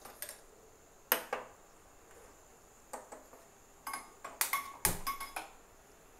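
Scattered sharp clicks and light metallic knocks of a non-stick kadai on a gas stove's grate, some with a short ring, coming thickest in a run near the end.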